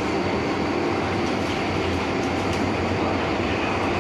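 MTR Tsuen Wan line M-Train, an electric metro train, running steadily with even noise from the train and its wheels on the track.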